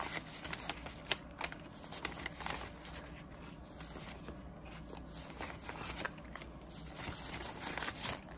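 A stack of paper banknotes being thumbed through and counted by hand: irregular rustling and flicking of the bills.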